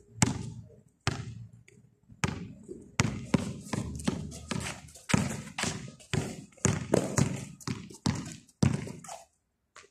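A basketball dribbled on a concrete court: repeated sharp bounces, slow for the first couple of seconds, then quickening to about two or three a second, stopping briefly near the end.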